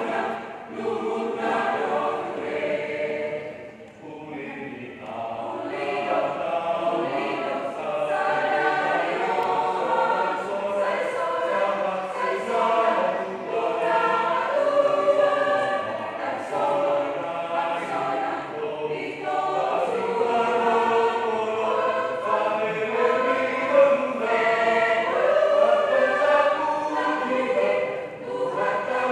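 A choir of several voices singing together in long, held melodic lines, with a short break between phrases about four seconds in.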